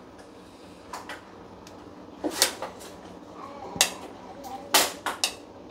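Small metal bolts and nuts clinking against the metal top of a wood stove as they are picked up and gathered, a handful of sharp irregular clicks, the loudest near the end.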